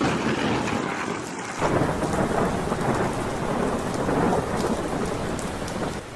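Heavy rain with rumbling thunder: a dense, steady rush that swells louder about one and a half seconds in and eases slightly near the end.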